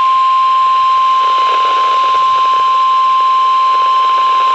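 NOAA Weather Radio's 1050 Hz warning alarm tone: one loud, steady single-pitch tone over a bed of radio static hiss, the signal that a warning broadcast, here a severe thunderstorm warning, is about to follow.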